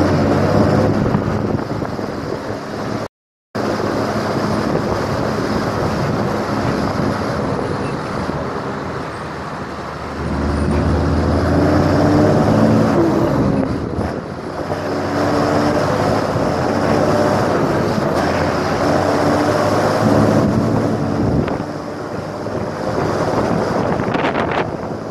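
A vehicle's engine running on the road with wind noise. Its pitch climbs and falls a few times as it speeds up and eases off. The sound drops out completely for a moment about three seconds in.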